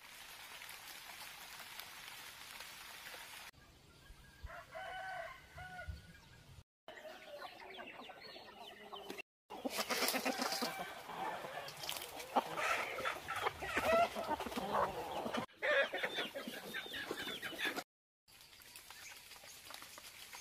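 Domestic chickens clucking, with a rooster crowing, heard in several short segments broken by brief silent cuts. A steady hiss fills the first few seconds, and the calls are loudest in the middle.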